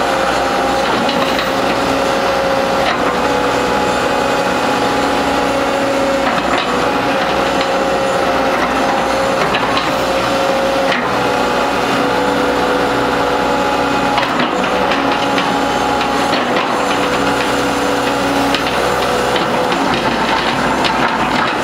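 Sumitomo S260F2 hydraulic excavator running as its boom, arm and bucket are worked: a steady engine and hydraulic drone with a hum that comes and goes, shifting in pitch every few seconds as the hydraulic functions change. Scattered short clicks sit over a rough mechanical rasp.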